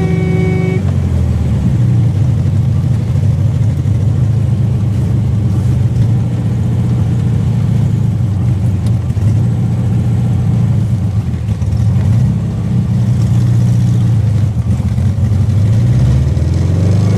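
Car engine running steadily, with a brief horn tone cut off under a second in. Near the end the engine note rises as it revs or accelerates.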